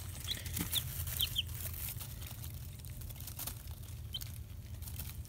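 Rhode Island Red hybrid chicks, about five days old, giving a few short high peeps, most in the first second and a half, while feeding, with light clicks and rustling as they peck and scratch at the feeder and pine shavings. A low steady hum runs underneath.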